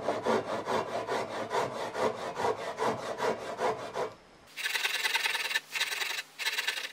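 Japanese pull saw crosscutting a tenon shoulder in a wooden beam, rasping in quick, even strokes. About four seconds in the sound turns brighter and hissier, coming in longer strokes with short breaks between them.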